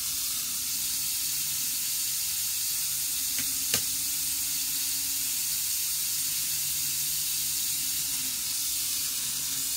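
Steady hiss with a faint low hum from a Micro Ace N-gauge 783 series model train running round its track, and a single sharp click about four seconds in.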